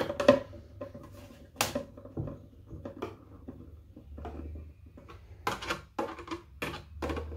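Hand screwdriver driving a screw through a plastic drawer-guide bracket into a wooden drawer side: a string of irregular sharp clicks and creaks as the screw bites into a stripped hole packed with glue and flat toothpicks.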